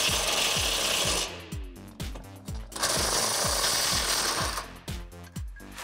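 Cordless impact wrench with a 16 mm socket hammering a bracket bolt loose from the Jeep's frame, in two bursts: one stopping just over a second in, the next from about three seconds in to nearly five. Background music with a steady beat runs underneath.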